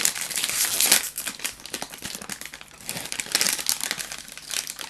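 Plastic ice cream cone wrappers crinkling and being torn open, with dense crackling that is loudest in the first second.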